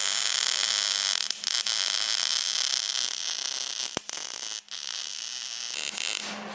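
Steady, harsh, hissing noise of metalwork on the steel parts of a homemade muzzle brake. It stops about four and a half seconds in and returns briefly near the end, with a single sharp click around four seconds.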